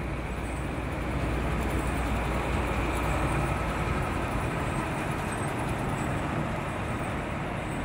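Steady road noise from a car driving on a wet highway: tyre noise on the wet pavement over a low, even rumble.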